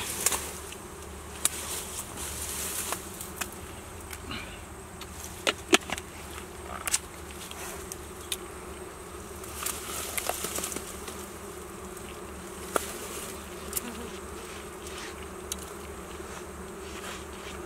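Bees buzzing in a steady hum around a wild honeycomb, with scattered sharp clicks and rustles through it.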